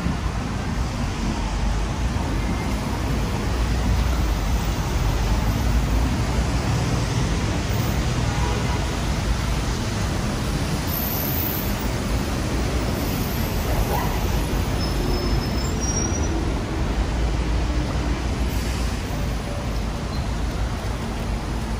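Steady city road traffic: vehicles passing on a busy road, with the hiss of tyres on wet asphalt.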